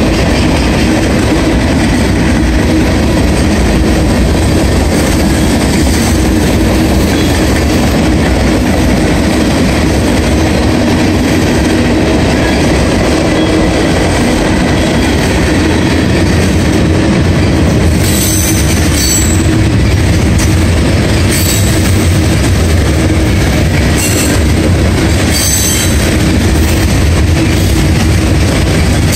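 Freight cars of a CSX mixed manifest train rolling steadily past at close range, a continuous noise of steel wheels on rail. In the second half, several brief high-pitched wheel squeals cut in.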